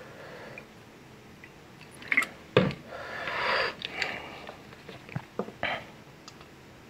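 A glass mug and a plastic bag being handled: a sharp knock a little over two seconds in, then about a second of crinkling rustle, with scattered clicks before and after.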